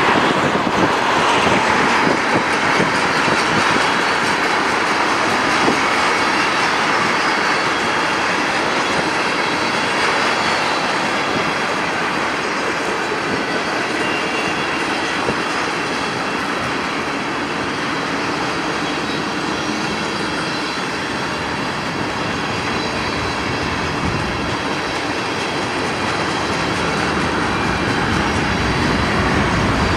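Freight train rolling past at steady speed, its cars' wheels running on the rails in a continuous loud rush.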